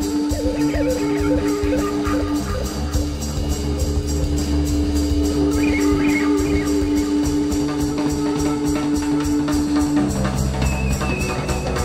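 Live rock band playing an instrumental passage. Drum kit keeps a steady quick cymbal rhythm over bass, while a long held note sounds through most of it and stops near the end, with wandering melodic lines above.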